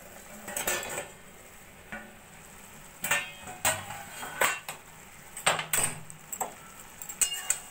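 Steel lid lifted off a kadai, then scattered sharp metal clinks and knocks of cookware being handled.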